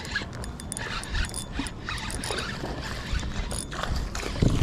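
Spinning reel being cranked on a lure retrieve, with irregular small clicks and rattles from the reel and rod handling, over wind buffeting the microphone. A louder gust of wind noise comes near the end.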